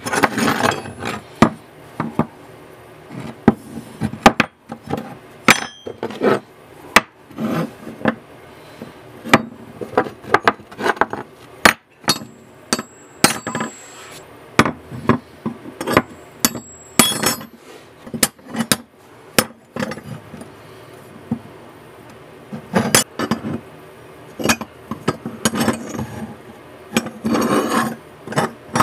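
Forged steel knife blades and bar stock set down and dropped onto a wooden workbench, knocking and clinking against the wood and against each other in irregular clusters. For a few seconds in the middle a piece rings with a thin high tone.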